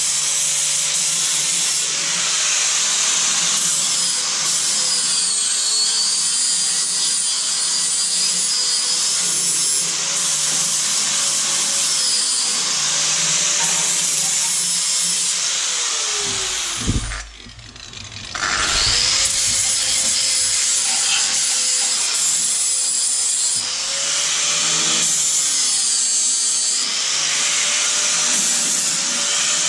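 Angle grinder knocking the tops off fresh welds on a steel chassis crossmember, its whine wavering as the disc bites and lifts. About halfway through it is switched off and winds down, stays off for a couple of seconds, then starts again and grinds on.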